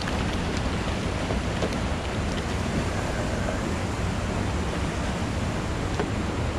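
Steady rushing noise of wind and moving water, with a few faint ticks.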